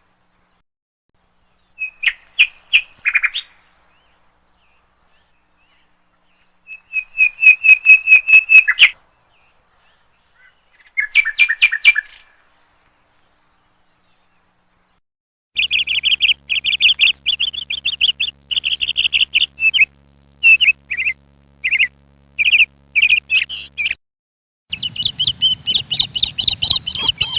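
Parrots chirping: short bursts of rapid, high repeated chirps, then a longer run of chirps and calls through the second half, with a faint low hum under part of it.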